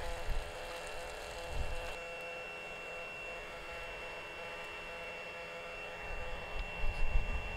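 Bacon sizzling in a nonstick frying pan over a small folding wood-burning camp stove: a steady hiss with a thin high whine through most of it. Gusts of wind rumble on the microphone at the start and again near the end.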